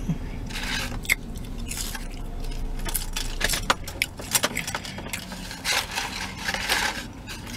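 Paper food packaging crinkling and rustling as it is handled, with irregular sharp crackles in several bursts.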